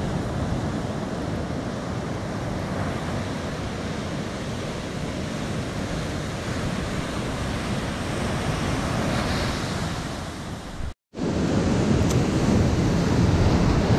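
Large Atlantic waves breaking on the shore, a steady heavy rush and rumble of surf. The sound cuts out for a moment about eleven seconds in, then comes back louder.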